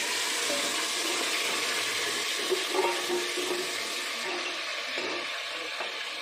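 Marinated chicken sizzling loudly in hot oil in a pan, a steady hiss that began just as it went in and eases slowly. A couple of short knocks sound near the middle.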